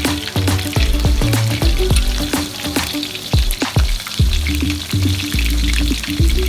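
Food sizzling as it fries in a pan, with sharp clicks through the hiss, over background music with deep bass notes.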